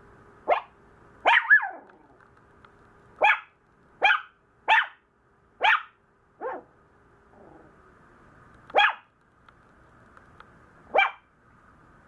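Maltese puppy barking in complaint: about ten short, sharp barks at irregular intervals, two close together about a second in and a softer one near the middle.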